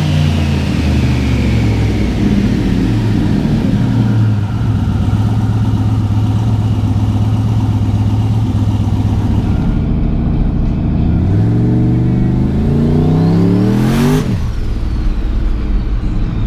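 Turbocharged 6.0-litre V8 with a billet S480 turbo: the engine winds down and runs at a steady speed, then revs up hard about 11 seconds in, with the pitch rising. Near the end a sharp whoosh comes as the throttle closes and the revs drop.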